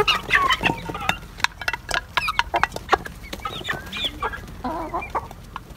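Desi chickens clucking and calling in short bursts while feeding, with frequent sharp taps as they peck at a feeding bowl.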